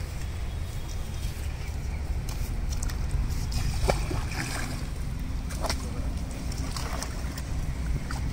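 Wind rumbling on the microphone, with water splashing and sloshing as people wade into shallow pond water, dragging a large fish through it.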